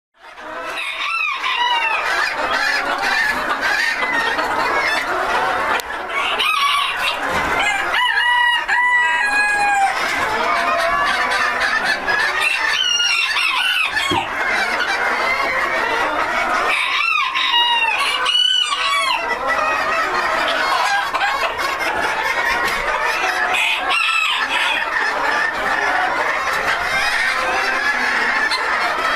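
A flock of Silver Duckwing Phoenix bantam chickens clucking and chattering without a break, with roosters crowing several times over it.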